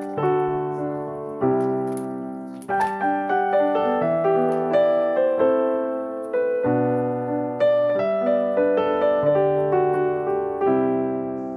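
Background piano music: a slow, gentle melody of notes that strike and fade over lower held notes.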